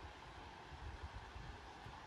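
Wind buffeting the microphone, an uneven low rumble over a steady outdoor hiss.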